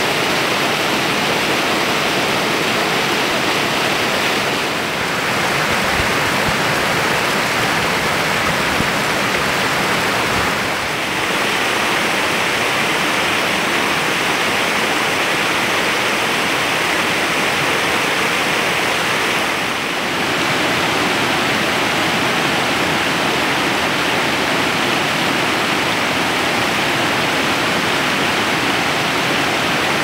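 Mountain stream rushing over small cascades and rocks: a steady, full rush of water that eases slightly in loudness three times.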